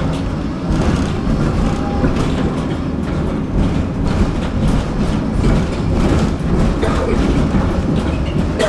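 Tram running along its track, heard from inside the car: a steady rumble and clatter of steel wheels on the rails.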